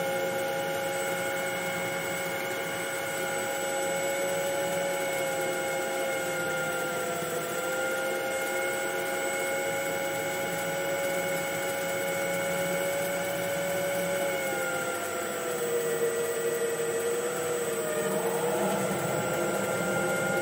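DIY CNC lathe spindle running, its drive giving a steady whine with several overtones; the pitch sags a little a couple of times as the center drill loads the spinning workpiece, and near the end a rougher cutting noise joins in.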